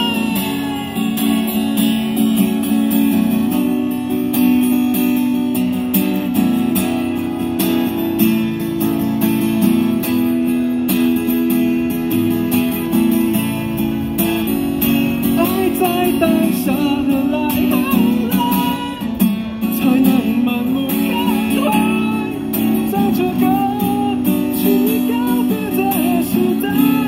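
Live song: a strummed acoustic guitar accompanies a singer singing into a microphone. The voice comes through most clearly in the second half.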